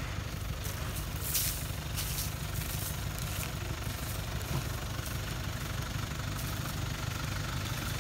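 A vehicle engine idling steadily with a low, even rumble, with a few short clicks between about one and three and a half seconds in.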